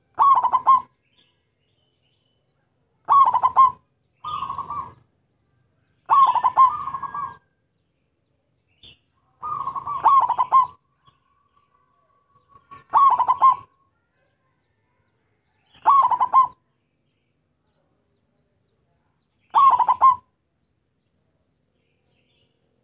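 Zebra dove (perkutut) singing: eight short phrases of rapid, stuttering coos a few seconds apart, one of them fainter.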